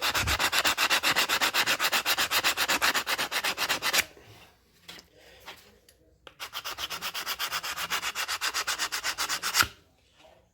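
Sandpaper rubbed rapidly back and forth against the edge of a drum brake shoe lining, rounding off its square corner so it won't catch in the brake drum. Two spells of quick, even strokes, with a pause of about two seconds between them.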